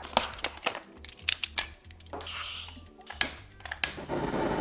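Scissors snipping and plastic packaging crackling as a blister pack is cut open, with scattered clicks and scrapes. About four seconds in, a handheld gas torch fitted to its cartridge starts a steady hiss that grows louder.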